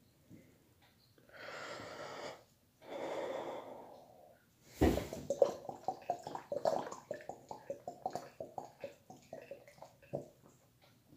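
Two deep breaths, then a 20-ounce plastic bottle of grape soda being chugged from about five seconds in: rapid gulping swallows, several a second, with the soda glugging out of the upturned bottle.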